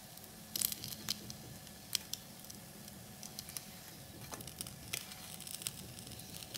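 French toast frying in an oiled grill pan, with a faint sizzle and scattered crackles, and light clicks of a spatula and fork against the pan as the slices are lifted and turned.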